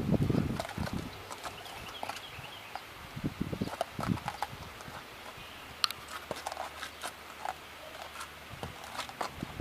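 A horse's hooves striking the ground. A few heavy thuds come right at the start, and a quicker run of hoof strikes follows about three to four and a half seconds in.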